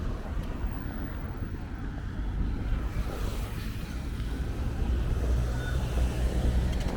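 Road traffic rumbling, with wind buffeting the microphone; the traffic swells louder in the second half, as if a vehicle is passing close by.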